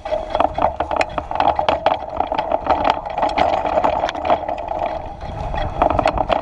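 Mountain bike rolling down a dirt trail: a steady rolling hum from the knobby tyres, with many sharp rattles and knocks of the bike over the bumps and a low wind rumble.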